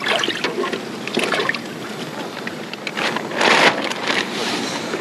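Water sloshing and a bag rustling as bass are handled in a weigh-in tub, with a louder splash about three and a half seconds in.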